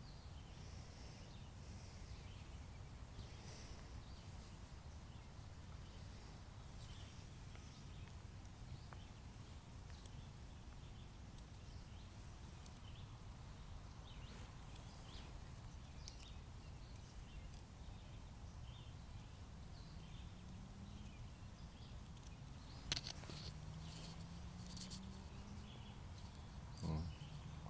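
Faint outdoor ambience: a steady low rumble with scattered faint high chirps. A few sharp clicks and knocks come about 23 to 25 seconds in.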